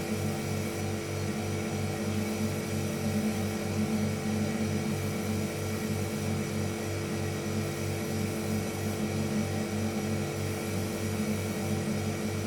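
Household refrigerator's compressor running with a steady electric hum, a low tone with a fast, even throb and fainter higher tones above it.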